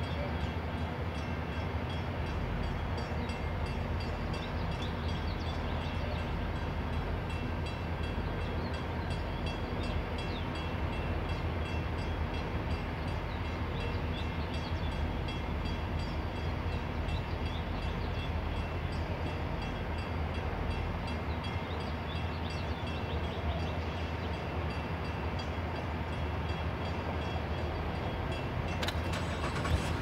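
Steady low rumble of engines idling in stopped traffic, even throughout, with one short sharp click about a second before the end.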